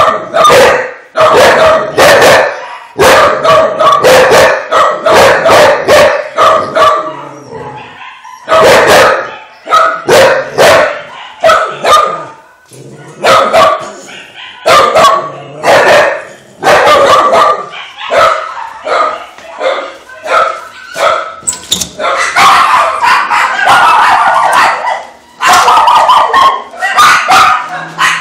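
Shelter dogs in kennels barking loudly and repeatedly, barks following each other in quick succession and running together almost without a break for a few seconds late on.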